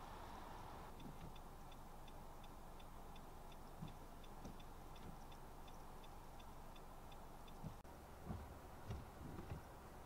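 Faint, regular ticking, about three ticks a second, over a quiet outdoor hiss; it starts about a second in and cuts off abruptly near eight seconds. A few soft low thumps follow near the end.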